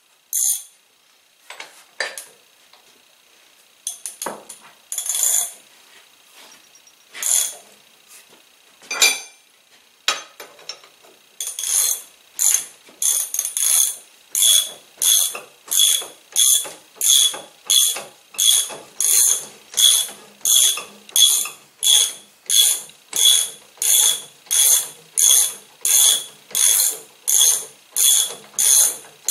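Ratchet wrench being worked in steady back-and-forth strokes, clicking about twice a second through the second half. Before that come scattered metallic clanks and clicks of tools and parts being handled.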